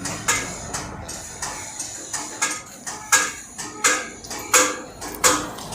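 Repeated hammer blows on steel, about eight sharp ringing clanks spaced roughly 0.7 seconds apart, as a Yamaha RX135 crankshaft is driven apart to free the old connecting rod.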